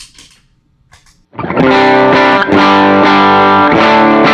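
Schecter electric guitar through a Tonex One AC30 amp model, boosted by a JHS pedal. After about a second of faint string and pick noise, loud overdriven chords are struck and left to ring, changing chord twice.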